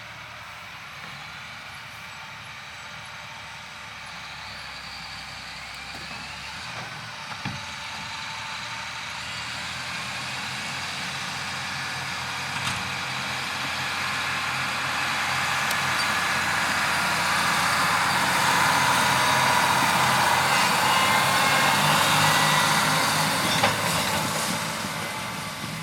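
Large diesel harvest machinery running in a corn field, growing steadily louder over about twenty seconds as it comes closer, then fading a little near the end as it passes. A couple of brief knocks are heard along the way.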